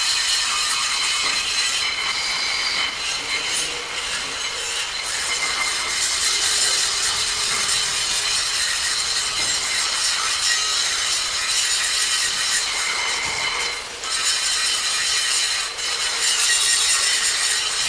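Power tool grinding metal: a steady high-pitched hiss with a thin whine, easing off briefly twice near the end.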